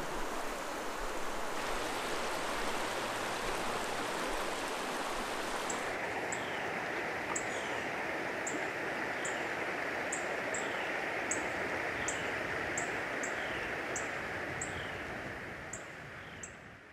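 River water rushing steadily over a riffle. From about six seconds in, short high chirps repeat about twice a second over the water, likely a bird. The sound fades out near the end.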